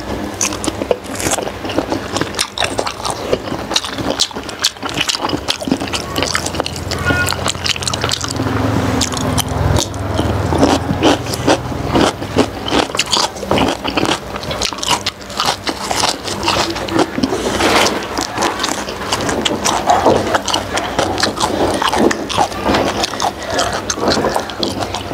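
Close-miked chewing of soft steamed pork skin, a steady run of mouth clicks and smacks. A low hum swells in the background for a few seconds around the middle.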